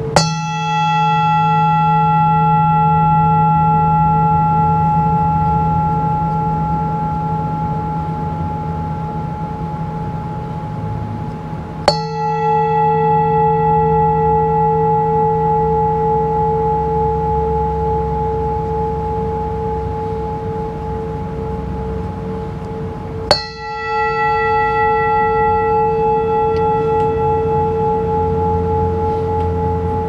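Brass singing bowl struck with a wooden striker three times, about every 12 seconds, each strike leaving a long ringing hum that swells and then slowly fades. The bright upper overtones die away within a few seconds while the two lower tones ring on, the lowest with a slow wobble.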